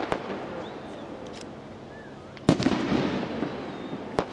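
Fireworks display: a burst at the start dies away into an echoing rumble with a few faint pops. About two and a half seconds in, a loud bang sets off a run of sharp crackling reports.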